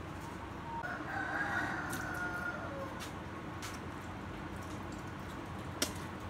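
A rooster crows once, starting about a second in and lasting under two seconds, its pitch falling at the end. A sharp click near the end.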